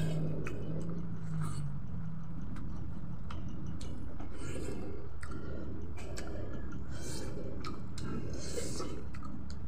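Close-up open-mouthed chewing of fatty boiled pork and rice eaten by hand, with frequent smacking clicks of the lips and tongue.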